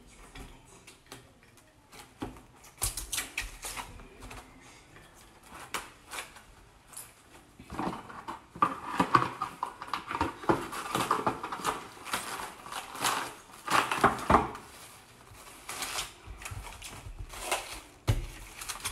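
Plastic cling film crinkling and rustling as it is pulled and wrapped around a cut watermelon half, with small knocks of handling; the crackling is busiest in the middle stretch.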